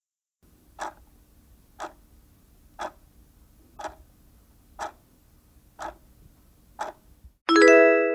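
Countdown-timer sound effect ticking once a second, seven ticks in all. It ends with a bright ringing chime near the end that marks the reveal of the correct answer.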